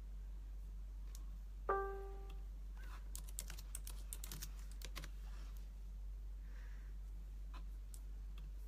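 A single short electronic ding about two seconds in, then a quick run of laptop keyboard typing for a couple of seconds, over a steady low electrical hum.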